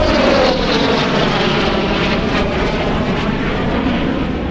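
Jet noise from a Dassault Mirage 2000 two-seat fighter in a display flight: a loud, dense roar whose pitch falls in the first half-second as the jet passes, then holds steady and slowly eases.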